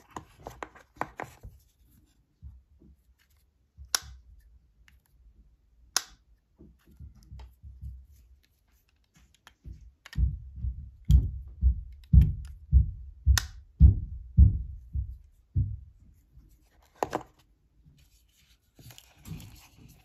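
Hands handling Apple AirPods (3rd generation) earbuds and their plastic charging case: scattered sharp clicks, then a run of about a dozen low knocks, roughly two a second, in the middle. Near the end, cardboard rubbing as the box is handled.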